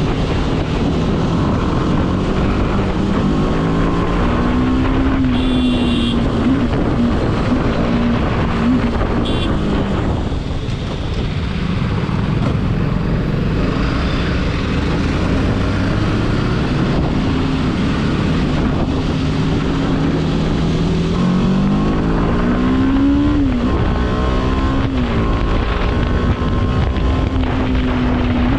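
BMW G 310 RR's single-cylinder engine running, its pitch rising and falling with the throttle, with a long climb in revs about 21 seconds in. Wind rushes over the microphone.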